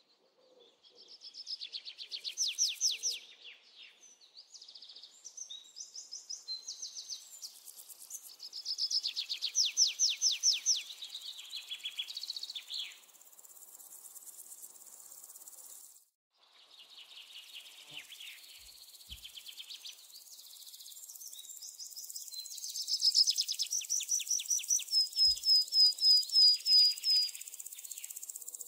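Nature ambience of high-pitched chirping trills, repeating in rapid trains of about four strokes a second, with a brief break about 16 seconds in.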